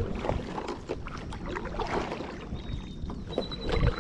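Kayak paddle strokes splashing and dripping in lake water as the kayak is paddled along, over a low rumble of wind on the microphone. A thin, steady high note joins from about three seconds in.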